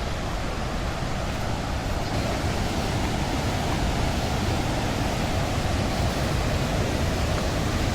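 Steady rushing of a fast-flowing mountain river, the Parvati, running at high speed and spate.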